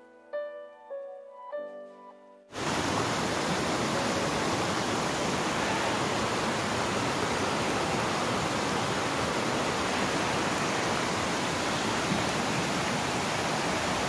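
A short stretch of background music that cuts off suddenly about two and a half seconds in, giving way to the steady rush of water pouring over a rocky cascade and running across flat rock.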